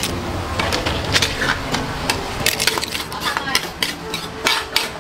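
A wooden pestle pounding and crushing ingredients in a clay mortar: repeated uneven knocks, about three a second.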